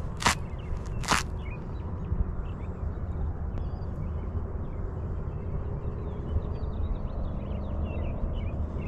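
Wind rumbling on the microphone, with faint birds chirping, and two sharp slaps a little under a second apart near the start.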